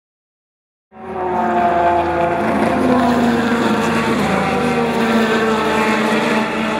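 Engine running steadily with a slowly falling pitch, starting suddenly about a second in.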